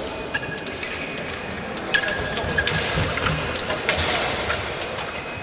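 Fencers' footwork on the piste: shoes squeaking briefly on the floor several times, with scattered sharp taps and clicks of steps and blades.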